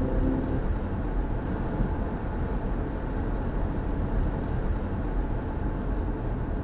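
A car driving on a wet road, heard from inside: a steady low rumble of engine and tyre noise.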